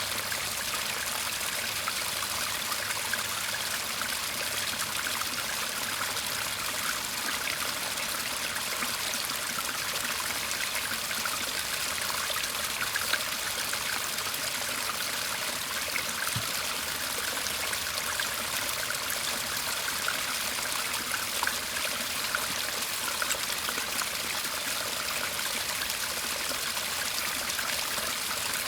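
Shallow garden stream murmuring steadily, water trickling and splashing in an even, unbroken rush.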